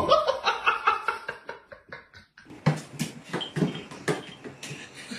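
Cat making a quick run of short calls, followed by several sharp knocks and taps.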